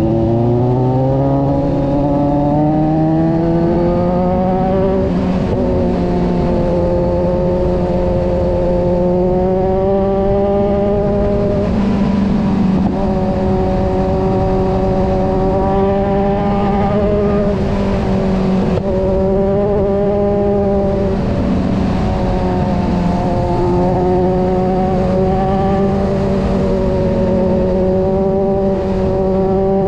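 Kawasaki motorcycle engine heard from on the bike, revs climbing over the first few seconds and then holding fairly steady while cruising, easing off and picking up again a few times, over a steady rush of wind.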